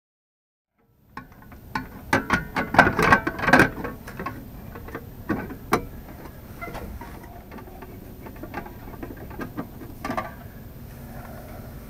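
Sharp clicks and knocks from handling a metal RV power outlet box as its cover plate with the 30 amp receptacle is fitted. A quick run of clicks lasts about three seconds, then a few single clicks follow.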